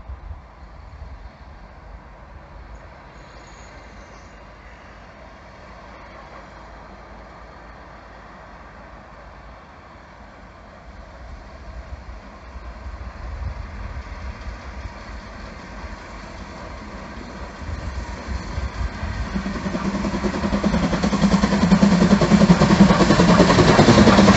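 LMS Ivatt 2MT 2-6-0 steam locomotive approaching with a seven-coach train, its exhaust and running noise faint at first and growing steadily louder, loudest near the end as it draws level.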